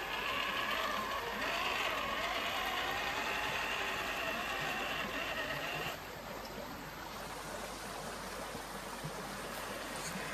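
Fast-flowing creek water rushing steadily, with the whine of an RC crawler truck's electric motor and gears over it that stops about six seconds in.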